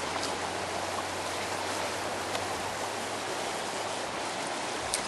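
Creek water running, a steady, even rushing hiss.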